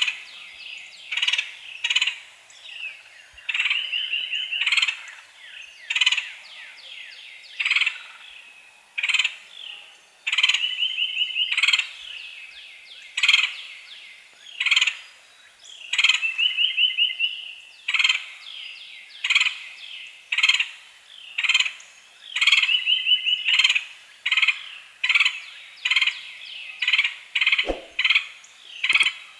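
Lineated woodpecker calling: loud, sharp single call notes about once a second, broken every few seconds by a rapid run of repeated notes.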